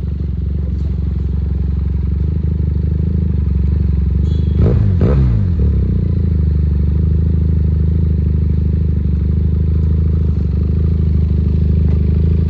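SRK 400 motorcycle engine and exhaust running steadily. The engine pitch shifts briefly about five seconds in.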